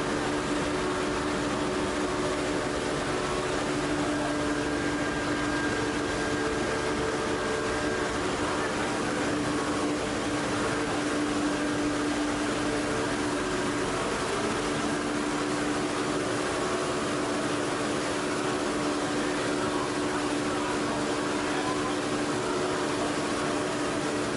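PP/PET box strapping extrusion line running: a steady machine drone with several held hum tones.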